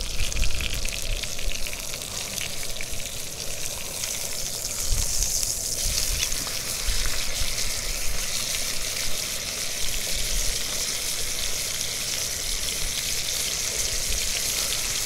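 Ribeye steak sizzling and spattering in a hot cast-iron skillet just after being flipped, a steady frying hiss that grows louder about five seconds in.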